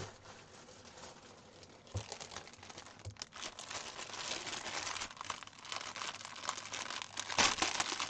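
Plastic packaging being handled and opened by hand: irregular crackly rustling that starts with a knock about two seconds in and grows louder toward the end.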